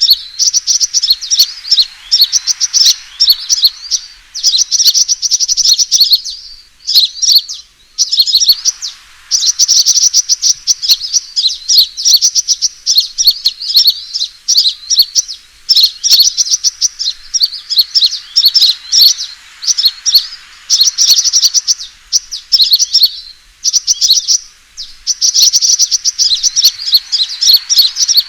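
Sunbirds ('kolibri') giving a fighting song: rapid, high-pitched chirping trills in runs of a few seconds broken by short pauses. It is a lure recording meant to draw sunbirds in.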